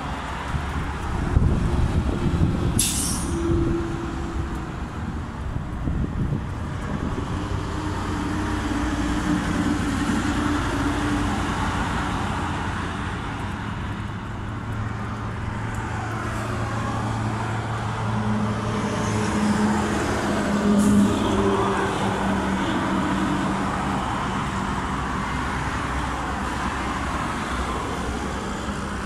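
Road traffic passing, cars and a heavy truck, with engine hum rising and fading as they go by, under strong gusty wind rumbling on the microphone. Two short sharp hisses cut through, one about three seconds in and another about two-thirds of the way through.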